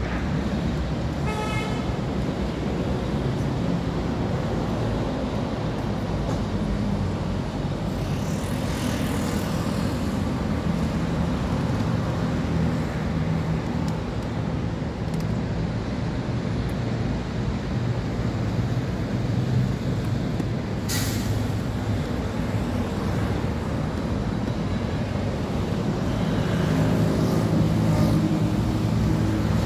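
Steady highway traffic with vehicles passing, a short horn toot about a second and a half in, a brief sharp hiss about 21 seconds in, and the low hum of a heavy engine growing louder near the end.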